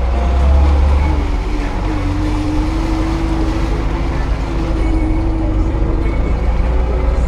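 Lada Niva 2121's engine and drivetrain running while the car drives, a heavy low rumble with a thin whine that comes in about a second in, rises slightly and holds for a few seconds.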